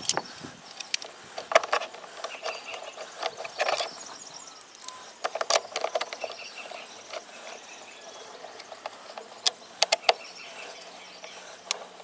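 Small scattered clicks, taps and rattles of an Allen wrench and a plastic handle bracket as the bracket's bolts are driven in by hand, with a few little clusters of clicks.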